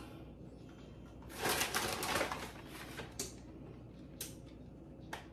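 Plastic bag of shredded cheese rustling and crinkling for about a second, followed by a few faint clicks about a second apart.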